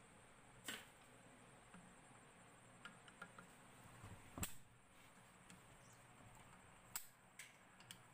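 Sparse faint clicks and taps of pliers on the bolts and metal end cover of a domestic water pump motor as the nut bolts are loosened, with near silence between them; one click about four and a half seconds in is louder than the rest.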